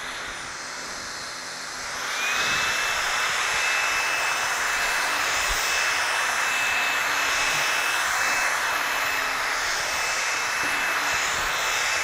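LG A9 cordless stick vacuum running as its powered brush head is pushed over carpet. About two seconds in it steps up to its highest setting: the motor's whine rises in pitch and gets louder, then holds steady.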